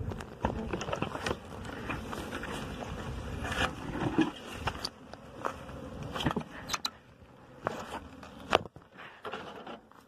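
Rustling, scraping and clicking as gear is handled and brushed through dry vegetation, with a faint buzz of wild bees fading out early on.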